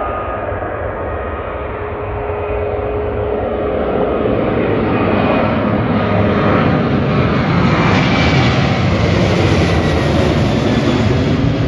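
Jet airliner with CFM56 turbofan engines at takeoff thrust, a loud roar that builds over the first few seconds and then holds steady.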